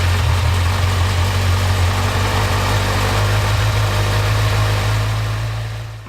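Kawasaki Ninja 1000's inline-four engine idling steadily just after starting, fading out near the end.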